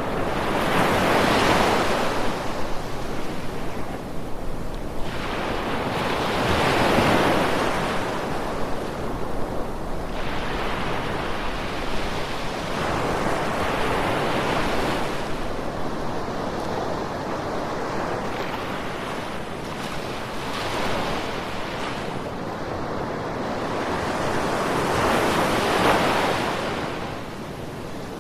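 Ocean surf: waves break and wash in one after another, a rushing swell of noise every five to seven seconds over a steady hiss.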